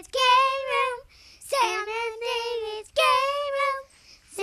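A child singing a short, high-pitched tune in held notes of about a second each, with brief breaks between phrases.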